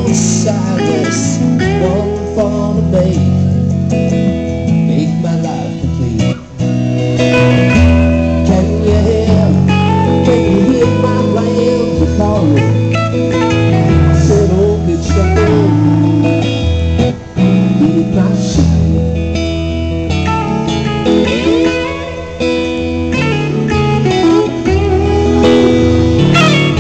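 Live blues band music led by electric guitar: a gold-top Les Paul-style electric guitar plays lead lines with bent notes over rhythm guitar and a steady, stepping low line.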